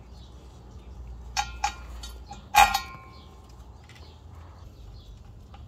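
Metal clinks of bolts and hand tools knocking against the drive shaft's flange as the bolts joining it to the guibo flex disc are fitted: two light clinks about a second and a half in, then a louder clink that rings briefly.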